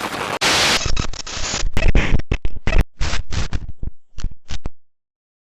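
Loud, harsh glitching static: noise broken into choppy, stuttering bursts that cut off suddenly about five seconds in.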